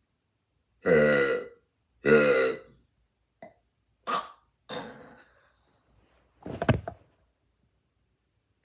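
A man burping deliberately: two long, pitched burps about a second apart, then a few shorter sounds and a last short burp near the end.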